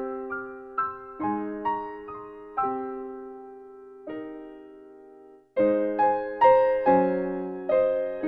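Background music: slow piano playing, single notes and chords struck and left to ring. The playing thins to near silence about five seconds in, then comes back louder.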